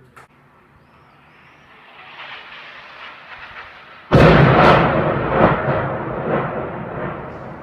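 Artillery shells exploding: a rising rush of noise, then a loud blast about four seconds in, followed by several more booms that roll and fade.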